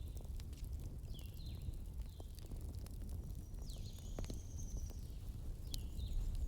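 Bonfire burning, with scattered sharp crackles and pops over a steady low rumble.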